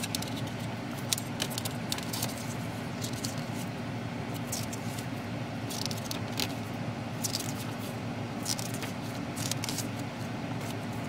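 Plastic CD jewel case and its paper booklet being handled: scattered light clicks and crinkles of plastic and paper as the case is opened and the booklet pages are turned, over a steady low hum.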